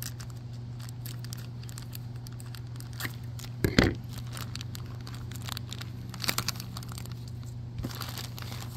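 Thin clear plastic toy bag crinkling in the hands and being torn open, with a loud rip a little under four seconds in and a quick run of sharper crackling tears about two and a half seconds later. A steady low hum runs underneath.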